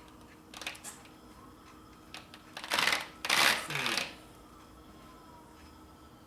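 Handling noise from metal parts and tools being worked while an oil line is bent and fitted: a couple of brief scrapes just before a second in, then a louder clatter and scraping from about three to four seconds in.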